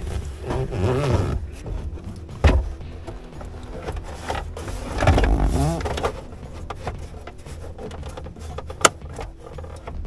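Plastic dash trim panel being worked back into a Jeep's lower dashboard: rubbing and scraping, with two sharp snaps, one about two and a half seconds in and a louder one near nine seconds.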